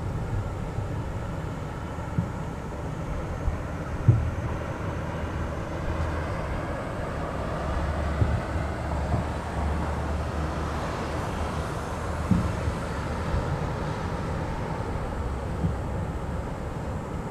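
Aerial fireworks shells bursting: a steady low rumble of booms and their echoes, with sharper bangs about four seconds in and again about twelve seconds in.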